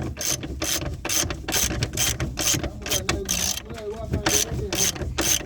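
Socket ratchet wrench clicking in rapid, even strokes, about three clicks a second, as bolts are run in during a rear suspension arm bush refit.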